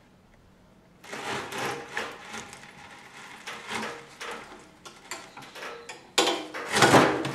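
Manual stainless-steel pineapple cutting machine worked by hand: metal clattering and knocking of the lever, safety guard and plunger as a pineapple is pressed down through the circular blade. It starts about a second in and is loudest near the end.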